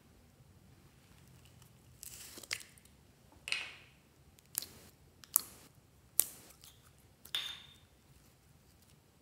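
A firm molded jelly being squeezed and torn apart by hand, making about six sharp, crisp crackling tears between two and eight seconds in.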